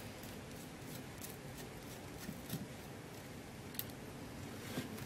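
SpikeBit screwdriver bit backing a small screw out of a circuit board: a few scattered light clicks and ticks over a steady hiss.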